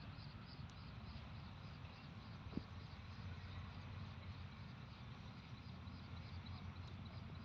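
Faint outdoor ambience: a steady low rumble under a high, even pulsing about three times a second, with one sharp click about two and a half seconds in.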